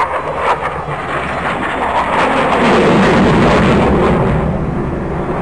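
Military jet fighter's engine noise during a low display pass. It swells to its loudest about halfway through, then eases slightly.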